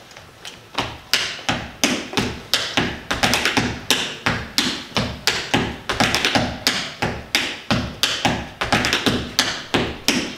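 Tap shoes striking the stage floor: two tap dancers beating out a quick rhythm of sharp taps, several a second, starting about half a second in.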